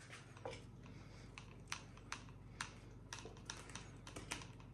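Faint, irregular small plastic clicks and ticks, a dozen or so, as the handle of a DJI Osmo Mobile 6 gimbal is turned and screwed down onto a tripod's 1/4-inch mounting screw.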